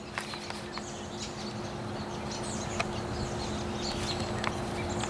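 A flock of American robins calling with many short, high chirps, over a steady low hum.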